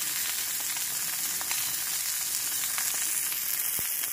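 Steady hiss of rain falling, with faint scattered ticks of drops.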